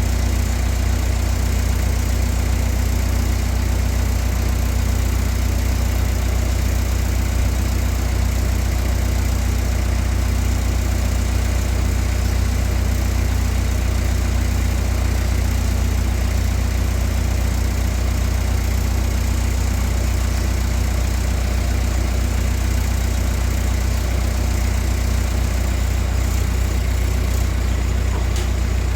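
A machine running at a steady low drone, with a faint regular pulse in it and no change in speed.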